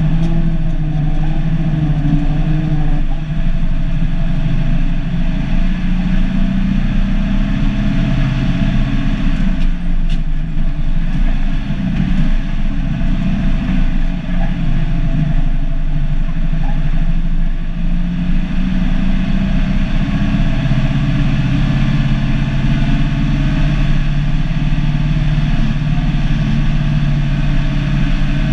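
Cummins NH-180 turbocharged inline-six diesel of an International F-210D dump truck running steadily while driving, heard from inside the cab, its note sagging and settling a little as the speed changes.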